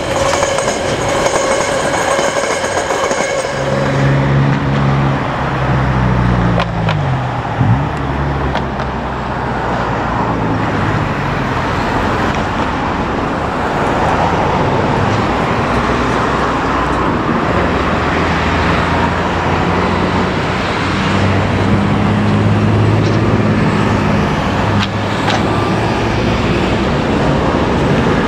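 A freight train's wagons run past with a steady high-pitched wheel squeal that stops abruptly about four seconds in. Then a KiwiRail DSG class diesel shunting locomotive's engine runs under load as it hauls flat wagons, its low note shifting up and down, over a steady rumble of wheels on track.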